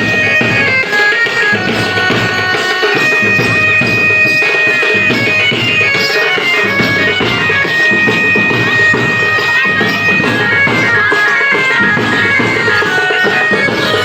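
Folk Holi music: a high, reedy wind instrument plays a stepping melody with long held notes over a steady drum beat.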